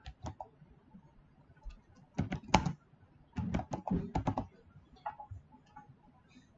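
Computer keyboard being typed on: a short run of key clicks about two seconds in, a longer run about a second later, and a few lone key taps in between.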